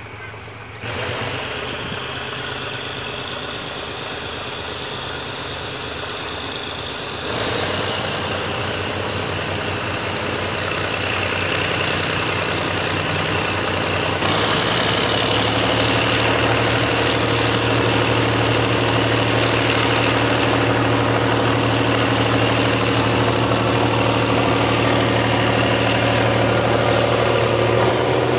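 General Electric UM12C diesel-electric locomotive running as it approaches and draws past with its passenger train. The engine sound gets louder in steps as it nears, with a deep steady hum and a high steady whine over it.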